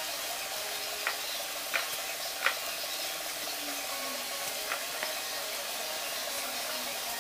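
Steady hiss with a few soft taps of a paint brush working resin over a gelcoated fiberglass part: three taps in the first few seconds and two more later.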